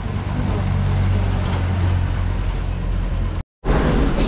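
Motorcycle engine running close by, a steady low hum. It cuts off abruptly about three and a half seconds in, followed by shop chatter.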